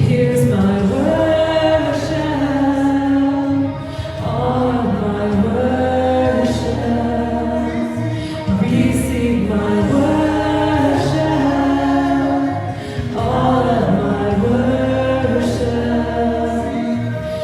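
A group of voices singing a slow worship song over a steady low musical backing, in long held phrases that break about every four to five seconds.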